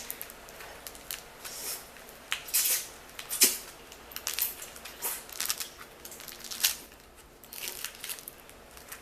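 A person eating spicy ramyon noodles close to the microphone: an irregular string of short, wet chewing and mouth sounds, with a sharper one about three and a half seconds in.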